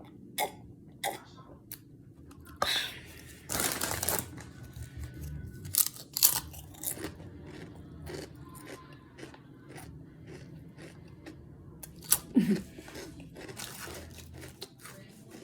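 A person chewing a sub sandwich close to the microphone, with repeated wet mouth clicks and smacks; a longer rustling stretch comes about three to four seconds in.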